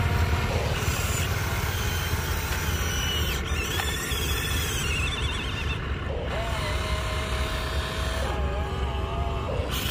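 Electric motors of a radio-controlled excavator whining in stretches as the arm and bucket work, the pitch sliding and wobbling, over a steady low rumble.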